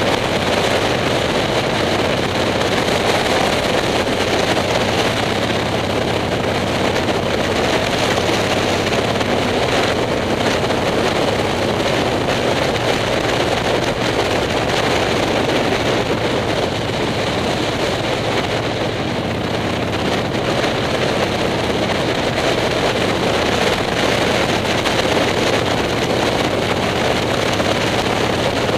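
Motorcycle engine running steadily at cruising speed, heard under a constant rush of wind on the onboard microphone.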